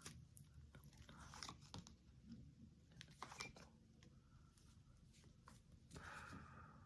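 Near silence: room tone with faint, scattered clicks and rustles.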